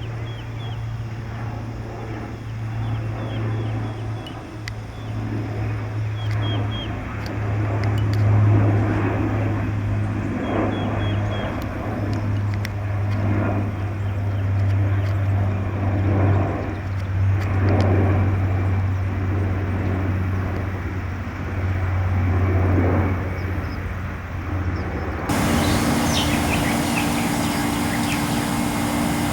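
A steady low engine drone with short bird chirps over it. About 25 seconds in it changes abruptly to a broader, hissier engine sound with a steady higher hum.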